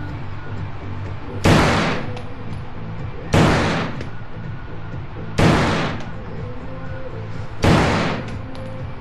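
Four single shots from an M16 rifle, fired about two seconds apart, each followed by a short echo.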